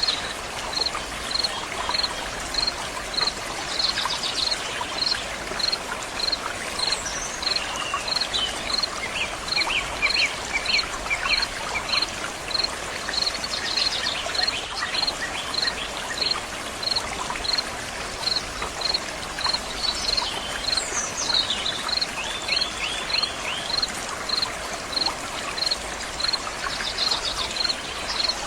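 Running stream water flowing and splashing steadily. A high chirp repeats evenly about twice a second throughout, with short bird trills and calls breaking in now and then.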